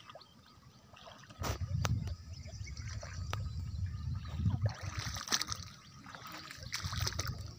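Shallow lake water sloshing and trickling, with a low rumble over much of it and a few sharp clicks.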